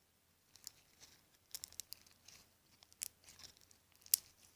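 Slime being stretched and squeezed by hand, giving a scatter of small sharp pops and clicks, the loudest about four seconds in.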